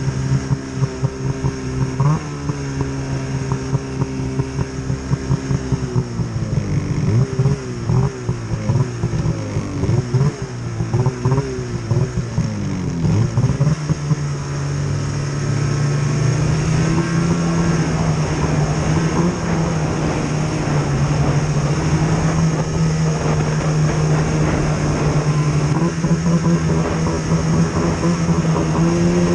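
Snowmobile engine running on a downhill run. Its pitch wavers up and down with the throttle through the first half, amid choppy jolts. From about halfway it holds a steady, higher note and gets louder.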